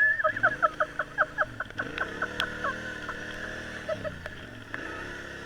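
A quick run of about a dozen short, high chirping notes over the first two and a half seconds, over an engine running with its pitch dipping and rising in slow swells.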